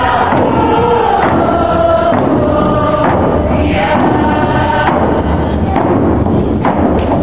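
A group singing a traditional Nisga'a song in unison, with hand drums beating under it.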